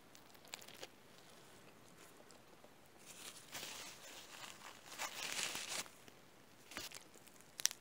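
Faint chewing clicks of a mouthful of cheeseburger, then a paper napkin rustling as it is rubbed across the mouth, in two spells of about a second each.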